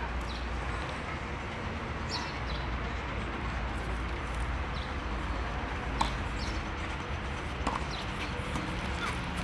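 Steady outdoor background noise with faint bird chirps and a couple of sharp knocks from a tennis racket striking the ball, about six and eight seconds in.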